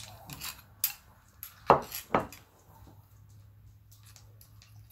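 Metal cutlery clinking against a dinner plate while eating: four or five sharp separate clinks in the first half, the loudest a little under two seconds in.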